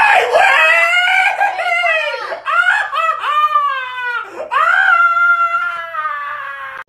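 A man yelling in long, wavering cries, "ay wey, ay-eee, ahhh", the pitch swooping up and down, while his legs are bent back over him. The cries are loud, break off briefly twice, and cut off abruptly at the end.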